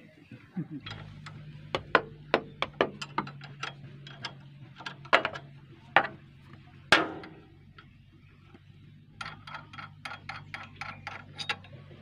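Hand tools clicking and clinking against the metal of a backhoe's alternator mounting as it is being unbolted, with a run of quick, even ratchet clicks near the end. A faint low steady hum runs underneath.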